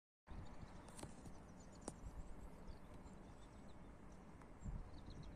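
Faint outdoor background: a low rumble with two sharp clicks about a second apart and a few faint high chirps.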